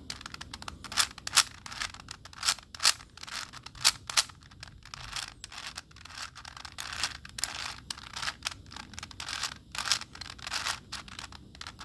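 Plastic 4x4x4 Rubik's Cube layers being turned quickly by hand through a long algorithm: a fast, irregular run of clacks and scraping clicks, some sharper than others.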